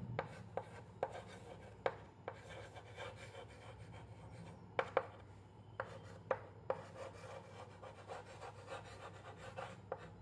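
Chalk writing on a blackboard: scratchy strokes with sharp, irregularly spaced taps as the chalk strikes the board.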